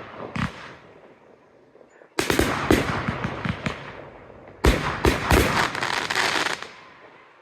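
Fireworks bursting in the air: a short bang just after the start, then two volleys about two and a half seconds apart. Each volley opens with a loud bang and is followed by a rapid run of cracks lasting about two seconds, the second dying away near the end.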